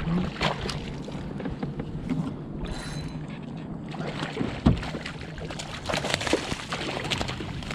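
Hooked snook thrashing and splashing at the surface beside a kayak as it is brought to a landing net, with irregular sharp splashes and water sloshing; one louder knock-like splash comes about halfway through, and the splashing grows busier near the end.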